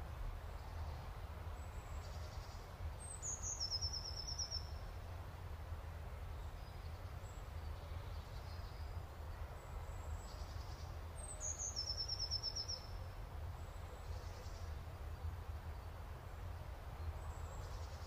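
Faint songbird song: a short phrase of high notes stepping down into a rapid trill, heard twice about eight seconds apart, with a few faint chirps, over a low steady rumble of outdoor ambience.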